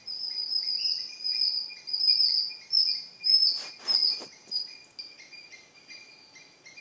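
Repeated high-pitched animal chirping, several short notes a second, with a brief rustle a little past halfway.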